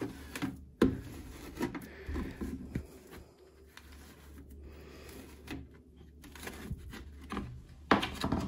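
Metal spoon scraping and clicking as damp Excavator clay is scooped and pressed down onto mesh in a glass enclosure: soft scrapes with scattered sharp clicks, a few louder ones about a second in and near the end.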